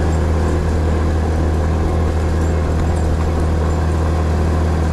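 Steady low drone of a vehicle's engine and road noise, an even hum that does not change.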